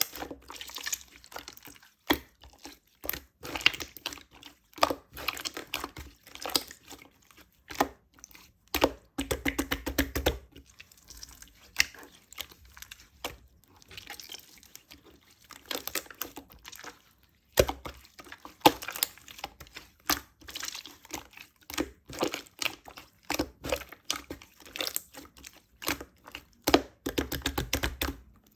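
Close-miked handling of something soft and sticky: irregular crackly clicks, pops and squishes, coming in short runs with brief pauses.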